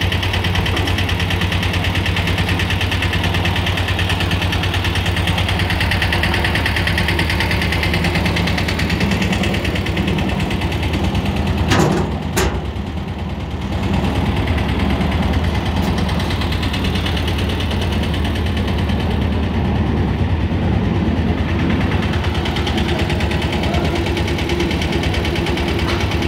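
Engine idling steadily with a fast, even beat. Two sharp knocks land about twelve seconds in, the first the louder.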